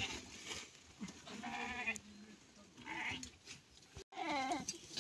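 Goats bleating several times in the pen, one drawn-out bleat about a second and a half in, with shorter calls around it.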